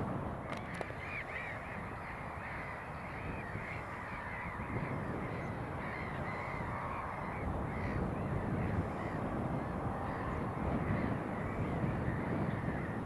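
Crows cawing over and over, many calls overlapping, above the low steady rumble of a John Deere 6150R tractor ploughing, which grows a little louder about a third of the way in.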